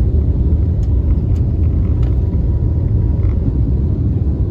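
Cabin noise of an Airbus ACJ319neo on its takeoff roll, heard from a seat behind the wing: a steady low rumble of the engines at takeoff power and the wheels running on the runway.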